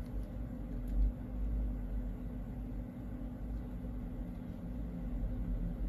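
Steady low rumble with a faint constant hum: background room noise. No distinct sound comes from the soldering work.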